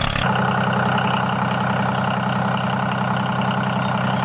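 A small engine of a miniature tractor running steadily at an even speed, with a constant hum.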